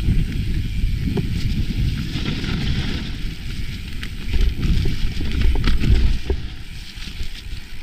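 Mountain bike ride down a dirt singletrack heard from the bike: a low wind rumble on the microphone with tyres rolling over dirt and scattered clicks and rattles from the bike, getting louder about halfway through.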